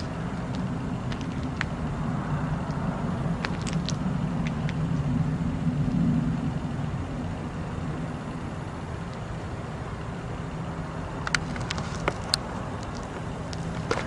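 Loud low roar from the night sky, a steady rumble that eases somewhat after about six seconds, with a few sharp clicks, the clearest near the end.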